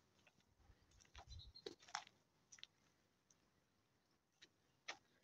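Near silence, broken by a few faint, very short ticks.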